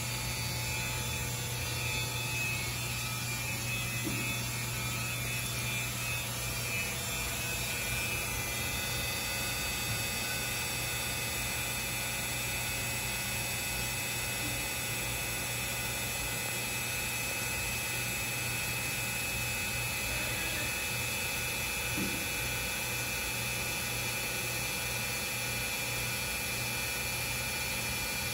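Breton NC300K26 CNC stone contouring machine running its spindle warm-up cycle: a steady mechanical hum with a high whine over it.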